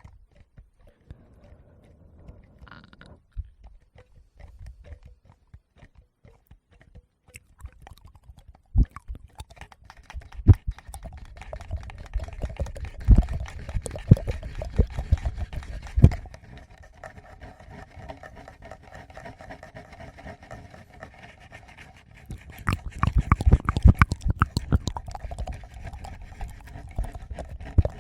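Close-miked ASMR sounds on a Tascam recorder: fingers touching and rubbing the microphones, making dense crackly scratching with a few dull thumps, along with wet mouth sounds. Faint at first, it becomes busier after about eight seconds and densest near the end.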